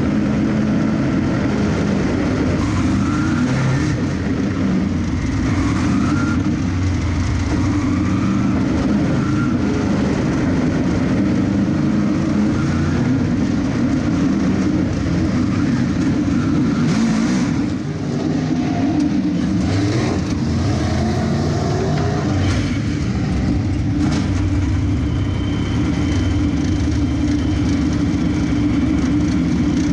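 Dirt-track race car's engine heard from inside the car, loud throughout, its pitch rising and falling with the throttle in the first part; it keeps running as the car slows to a crawl near the end.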